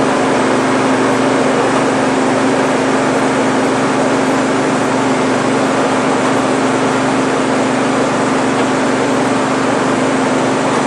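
Combine harvester running steadily while harvesting wheat: a constant machine hum with a strong steady low tone.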